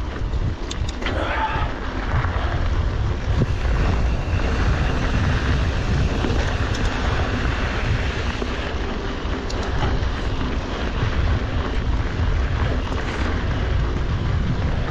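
Wind rumbling steadily on the microphone while riding a mountain bike, mixed with rolling tyre and trail noise and a few light clicks near the start.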